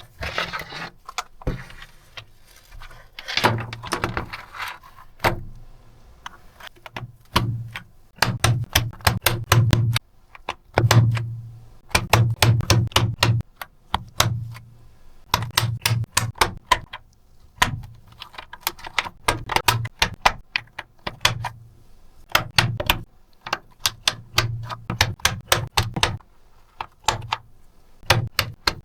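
Keys of a computer keyboard being typed on in fast runs of clicking keystrokes, each run a few seconds long with short pauses between. A rubbing noise comes in the first few seconds.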